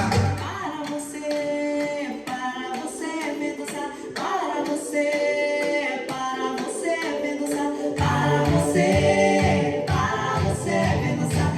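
House music breakdown: sung vocals over the track with the bass and kick dropped out, until a pulsing bass line comes back in about eight seconds in.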